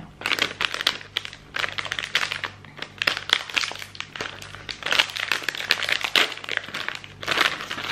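A small snack pouch crinkling and crackling in the hands as it is handled and pulled open, a near-continuous run of small crackles.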